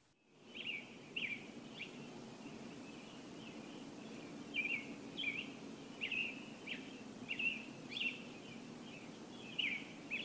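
Outdoor ambience: small birds chirping in short, high calls, about one or two a second, many sliding down in pitch, over a steady low background hum. It fades in at the start.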